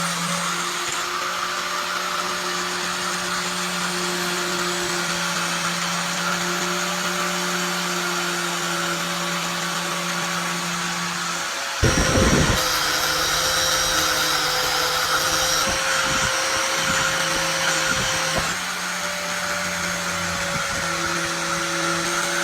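An electric power tool running steadily with a constant motor hum, as in workshop cleaning or grinding of the fan's parts. About twelve seconds in there is a sharp knock, and for a few seconds afterwards the tool runs a little louder with some extra high whine.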